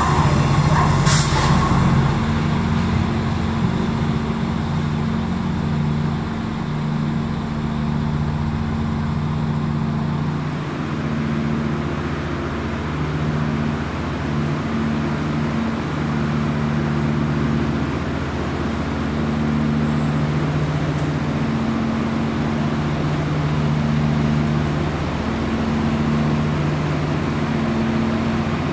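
Renfe diesel multiple unit idling: a steady low engine drone with several held tones. A short, high metallic squeal of train wheels comes right at the start.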